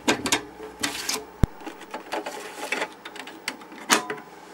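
A 5.25-inch floppy disk is pushed into an Apple Disk II drive and the drive's door lever is clicked shut: irregular plastic clicks and clacks. One sharp click comes about one and a half seconds in, and a low hum cuts off with it.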